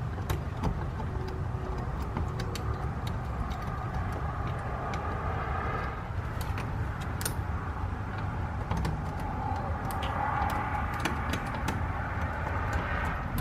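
Small metallic clicks and scrapes of lock-picking tools worked in a door lock, scattered irregularly, over a steady low rumble of a running vehicle engine or road traffic.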